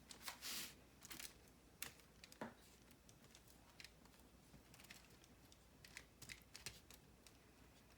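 Faint, scattered light clicks and short scrapes of a spatula working hot caramel over crackers on a foil-lined cookie sheet, busiest in the first few seconds.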